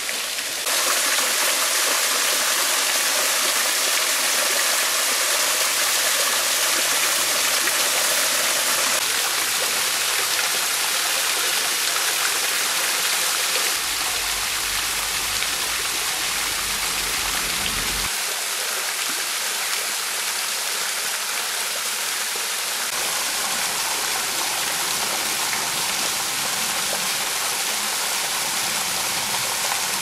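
Small waterfall, a thin curtain of water falling over a rock ledge and splashing into a shallow pool: a steady rush and patter of falling water. Its level shifts a little a few times, and a low rumble comes in for a few seconds around the middle.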